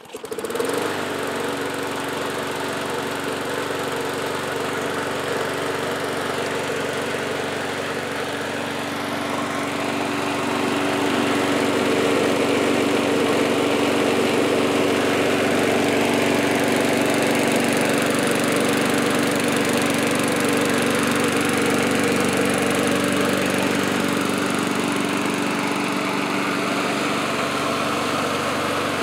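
MTD push lawn mower's small four-stroke engine comes in suddenly and runs steadily, growing louder about ten seconds in.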